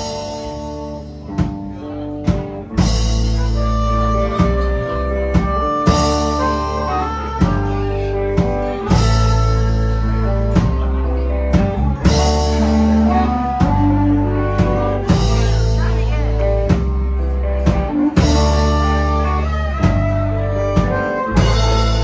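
A live rock band plays an instrumental passage: harmonica leads over a drum kit, electric guitar and keyboard, with a steady beat and sustained low notes.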